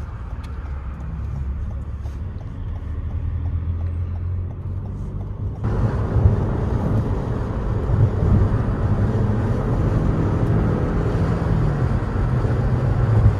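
Cabin noise of a Toyota Camry on the move: a steady low rumble with an engine hum, which changes abruptly about halfway to a louder, fuller rush of tyre and wind noise at highway speed.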